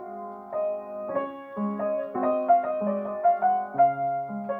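Upright piano played solo: a slow, quiet melody over a low note struck again and again at an even pace.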